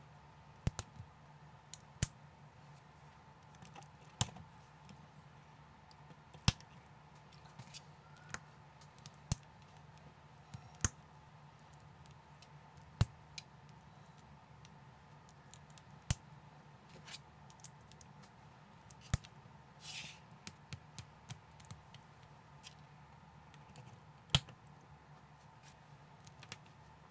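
Small plastic building bricks clicking and snapping as they are handled and pressed together. The clicks are sharp and irregular, one every second or two, over a faint steady hum.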